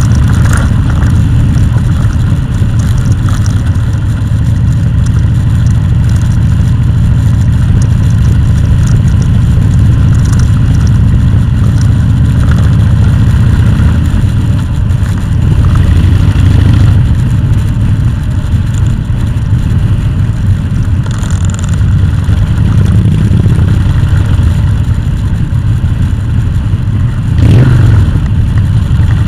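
Vehicle engine running steadily under way, a loud low rumble that rises and falls a little with the throttle, with a brief louder burst near the end.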